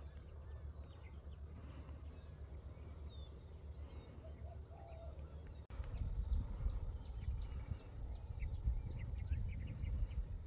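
Outdoor ambience: wind rumbling on the microphone, louder after a sudden break a little past halfway, with scattered chirps of small birds.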